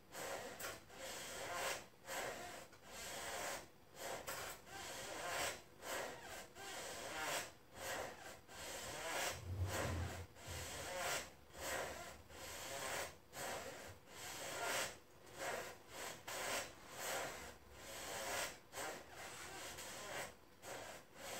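Faint rhythmic rubbing of hands against the leg, skin and clothing, a little more than one stroke a second, as a knee is rocked over and over toward extension by hand during manual mobilization. There is a soft low bump about halfway through.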